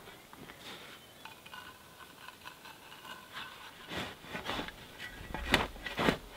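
A shovel digging into loose soil, with several scraping strokes in the second half; the last two are the loudest.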